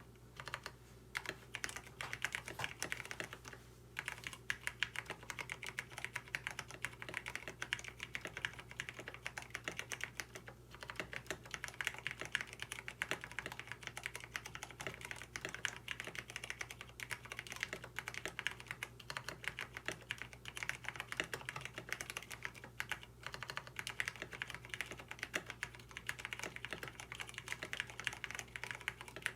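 Fast, continuous typing on a KBD67 Lite mechanical keyboard with lubed Cherry MX Brown (Hyperglide) tactile switches and a PE foam mod. The owner hears the switches as horribly scratchy, with annoying "tic" sounds from housing wobble because they have no switch films. A faint steady low hum runs underneath.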